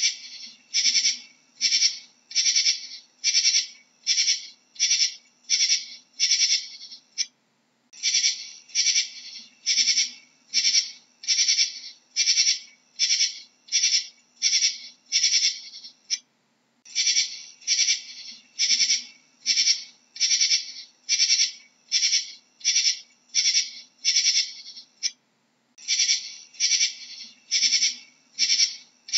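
Katydid calling: short, high-pitched buzzing chirps at about two a second, in runs of about a dozen broken by pauses of about a second.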